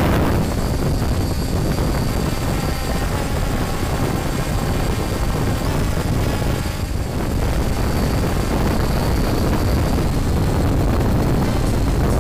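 Small FPV quadcopter's motors and propellers buzzing steadily in flight.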